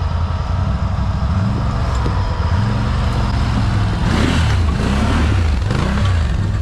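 ATV engine revving hard under load, its pitch repeatedly climbing and dropping. There is a brief rushing noise about four seconds in.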